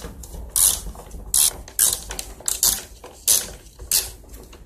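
A 5/16-inch socket driver ratcheting in short clicking bursts, about two a second, as mounting bolts are backed out.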